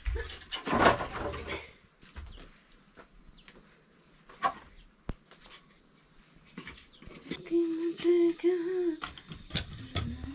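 An armful of split firewood dropped onto an earthen floor with a clatter about a second in, followed by lighter knocks of sticks being handled and laid on a floor hearth fire. Near the end, a farm animal gives a short wavering call in a few pulses.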